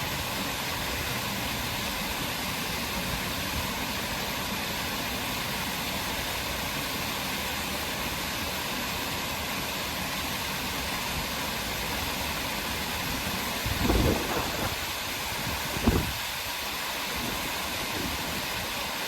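Steady outdoor rushing noise with no distinct voices or tones. Near the end it is broken by two brief low thumps about two seconds apart.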